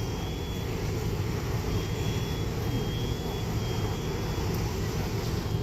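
A steady low engine rumble, with a faint high-pitched alarm tone sounding on and off over it.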